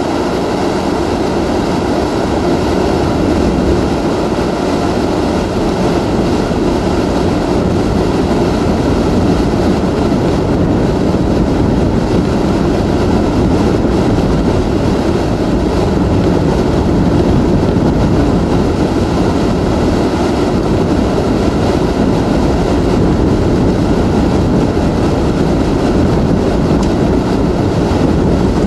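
Category 4 hurricane-force wind and driving rain blowing against a vehicle, heard from inside the cabin: a loud, steady rush of noise with no let-up.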